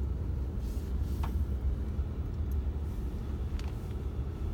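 Steady low rumble of a car's engine and tyres, heard from inside the cabin while driving, with a couple of faint clicks.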